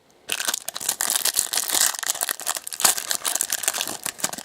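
Plastic trading card pack wrapper being torn open and crinkled by hand, a dense run of crackling starting about a quarter second in.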